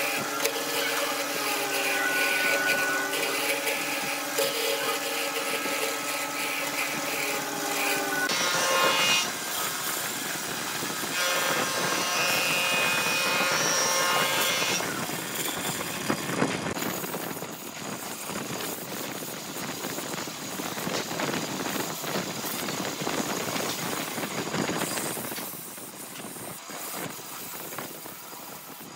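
Wood lathe spinning a workpiece while a turning tool cuts it. For the first eight seconds there is a pitched whine, and then a rougher scraping noise.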